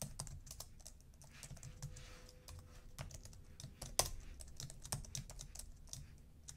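Typing on a computer keyboard: an irregular run of faint key clicks as code is entered, with one louder key strike about four seconds in.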